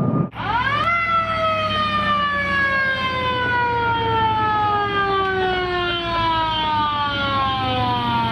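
Fire truck siren rising sharply in pitch in its first moment, then sliding slowly and steadily down in pitch as it winds down.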